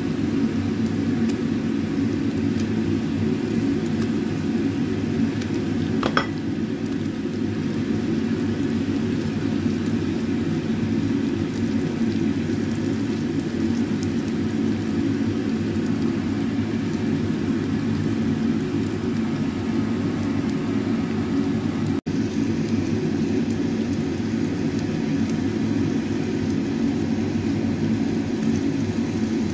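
Shrimp frying in spice paste in a wok, with light sizzling over a loud, steady low whir. A brief rising squeak comes about six seconds in.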